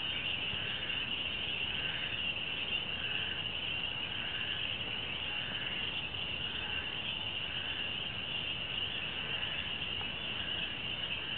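Night chorus of insects: a steady high trill, with a second call pulsing a little lower about four times every three seconds.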